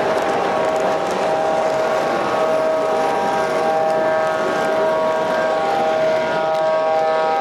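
O gauge model freight cars rolling past on three-rail track, with a steady tone of several pitches held throughout.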